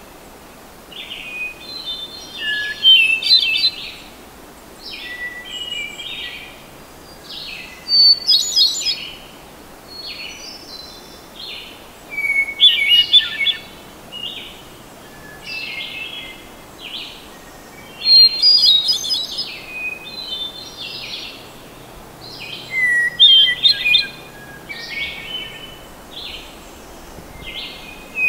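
Hermit thrush singing: a string of short phrases, each starting on a held note and rising into a higher tumbling flourish. The loudest phrases come about every five seconds, with softer ones in between.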